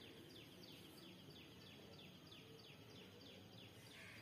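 Near silence: faint room tone with a faint high, falling chirp repeating about three times a second.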